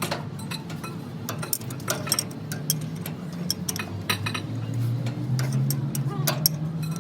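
Metal tools and parts clinking and tapping against metal at an irregular pace, over a steady low machine hum.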